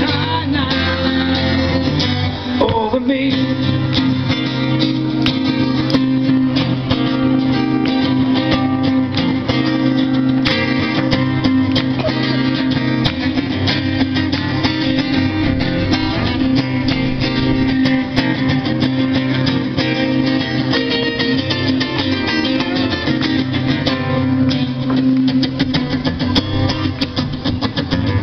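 Two acoustic guitars played live in an instrumental passage, strummed and plucked without a break.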